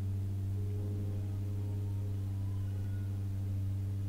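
A steady low hum with fainter sustained tones above it, some of which shift about a second in.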